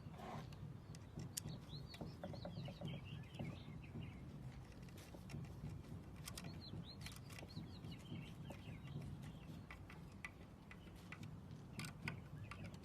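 Faint bird chirps in two short bouts, with scattered light clicks over a steady low hum.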